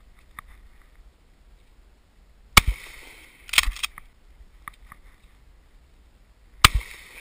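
Two shotgun shots about four seconds apart, each a sharp loud crack that rings out briefly. A further loud, sharp sound comes about a second after the first shot.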